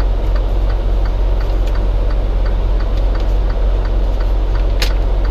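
Freightliner Cascadia semi truck's engine and road noise droning steadily inside the cab, with a light regular ticking at about three ticks a second and a brief hiss near the end.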